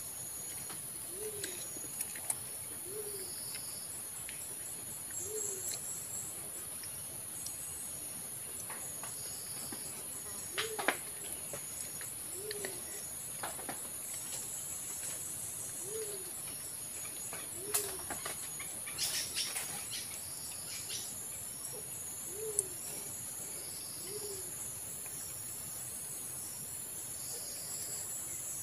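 White-eared brown dove cooing: short, low single hoo notes that rise and fall, repeated about every two seconds in loose pairs. A steady high insect drone with a faint rapid ticking runs underneath.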